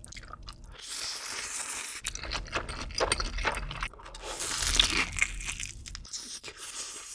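Close-miked eating sounds: slurping black bean ramyeon noodles, then biting into and chewing cheese-sauce-dipped chicken.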